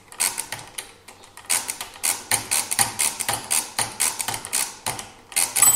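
Original Odhner pinwheel mechanical calculator being cranked over and over, each turn a quick clatter of clicks from the pinwheels, crank and counter mechanism. The turns are the repeated subtractions of a long division, and a small bell rings right at the end, the machine's signal that the result has gone into underflow.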